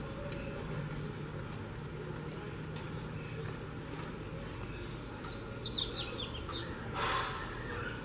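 Double-collared seedeater (coleiro) singing one short phrase of rapid, sharp, high notes about five seconds in, lasting under a second and a half. A brief noisy rush follows just after, over a steady low background rumble.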